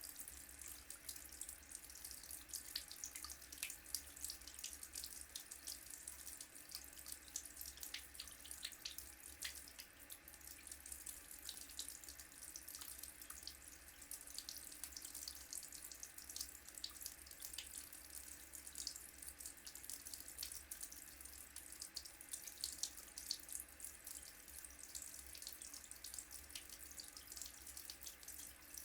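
Water running steadily from a tap, splashing with a constant fizzy patter, over a faint low hum.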